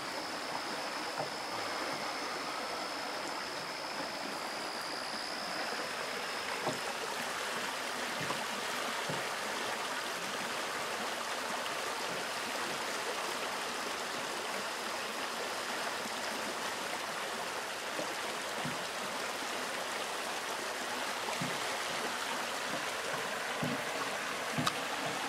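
Steady rush of running stream water. A thin, steady high tone sits over it for the first six seconds or so, and a few faint soft knocks come through.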